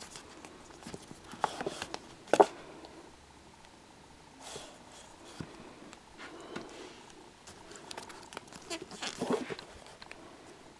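Scattered handling rustles and clicks as fingers and a handheld camera brush against paperback manga spines on a shelf, with one sharp click about two seconds in.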